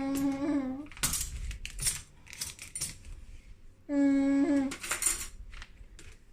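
Stainless-steel cutlery clinking, a run of sharp metallic clicks as spoons and forks are handled and dropped into a cutlery tray. A voice hums one steady note at the start and again about four seconds in.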